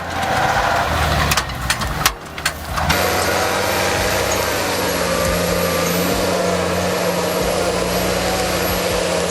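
Heavy vehicle engine running, with a few seconds of uneven knocks and a brief drop in level at the start, then a steady hum.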